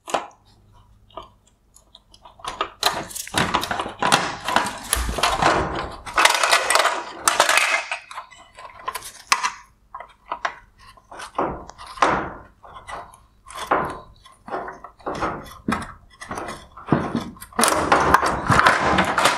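A small flathead screwdriver prying at plastic wire harness connectors on a car's LED headlight: irregular clicks, scrapes and knocks of plastic on plastic and metal, with the headlight housing rattling as it is handled.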